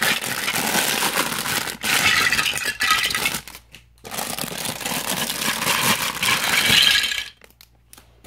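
Clear plastic bags of Lego Duplo bricks crinkling as they are opened, and the plastic bricks clattering together as they are tipped out, in two spells of about three seconds each that stop about seven seconds in.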